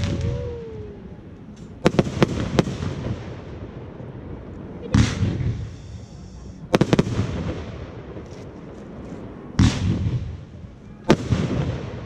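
Fireworks display: about ten loud bangs of shells bursting, some single and some in quick clusters of two or three, each trailing off in a low rumbling echo.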